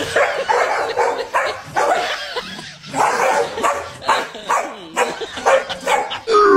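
Dogs barking, a run of short sharp barks with a brief pause about two and a half seconds in.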